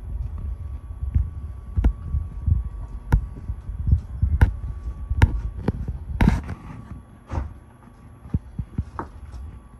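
Footsteps thudding unevenly on a pop-up camper's wooden floor, with several sharp knocks and clicks among them. A faint steady high tone runs underneath.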